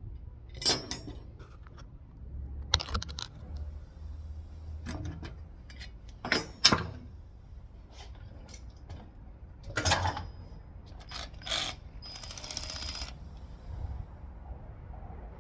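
Metal clinks and knocks of hand tools and parts during brake work, several separate strikes, with a noisy burst about a second long near the end.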